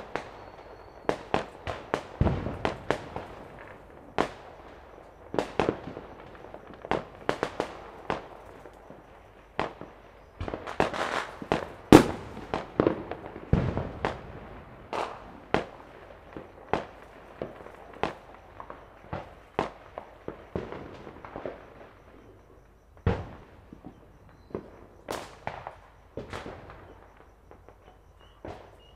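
Fireworks and firecrackers going off all around: a rapid, irregular string of sharp bangs, some overlapping, with a few deeper booms mixed in. The bangs come thickest and loudest about twelve seconds in, then thin out to scattered single reports.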